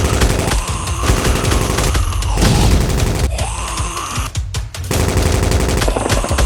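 Action background music with bursts of rapid machine-gun fire sound effects over a heavy bass, dropping out briefly a little past four seconds in.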